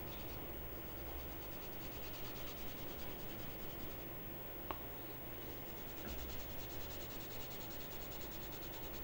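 Graphite pencil scratching faintly across paper in hatching strokes, shading the dark areas of a sketch. A single short tick about halfway through.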